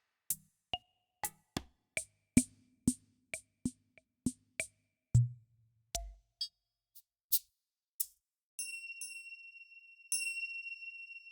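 Korg Triton Extreme VST drum and percussion samples played one at a time: a quick run of single drum hits, several with low pitched tails like toms, then two deep low hits about five and six seconds in, a few short high clicks, and from about eight and a half seconds a bell-like metallic percussion sound struck a few times and left ringing.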